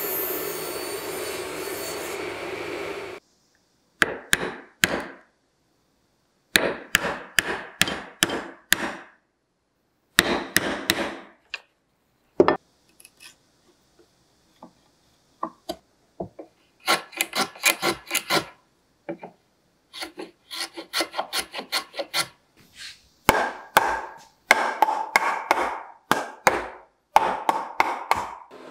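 A table saw cutting a board stood on end in a tenoning jig stops abruptly about three seconds in. Then a chisel pares the slots of a hardwood joint by hand, in clusters of quick, sharp scraping strokes with short pauses between them.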